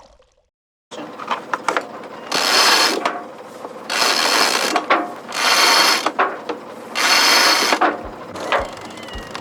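Mechanical ratcheting: scattered clicks and four loud rasping strokes, each under a second, about a second and a half apart, starting about a second in.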